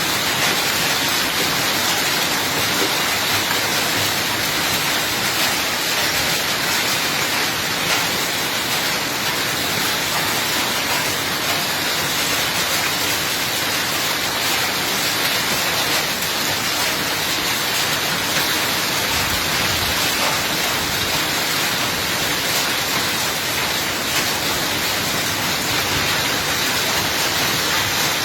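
Heavy rain mixed with hail pouring down in a thunderstorm: a steady, dense hiss of falling water and hailstones.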